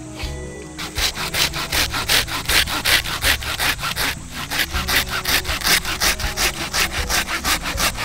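Wood being sawn by hand with quick, even strokes, about four a second, with a short break about four seconds in.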